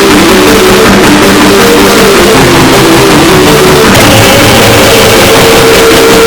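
Loud, heavily distorted YTPMV remix music: a sampled 'beep beep' clip pitched into a quick run of stepped notes, then held on one long note from about four seconds in, over a dense wall of noise.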